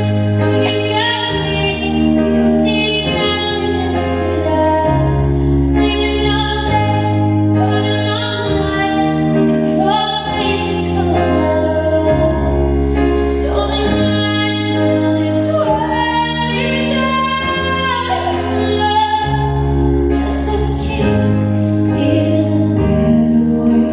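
A woman singing a slow pop song live over instrumental accompaniment, with sustained chords changing every second or two.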